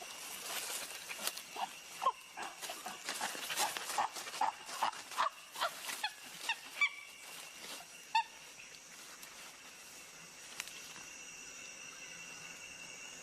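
Chimpanzees giving a rapid run of short, excited calls for about seven seconds. The calls come closer together and climb in pitch before dying away, with a last call about eight seconds in. They are typical of excited greeting between reunited chimps.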